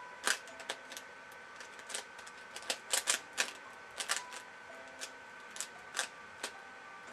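3x3x3 Rubik's cube being turned by hand, its plastic layers clicking irregularly as they are scrambled, with a quick run of clicks a little before the middle.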